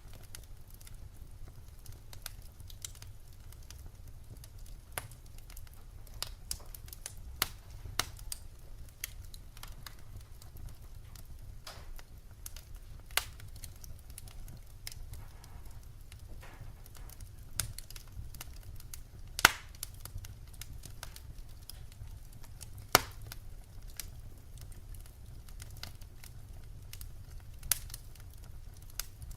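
Firewood fire crackling, with irregular sharp pops and snaps over a low steady rumble; two louder pops stand out past the middle.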